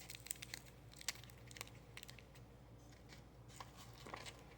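Black pepper being dispensed onto rice: faint, irregular little clicks and crunches.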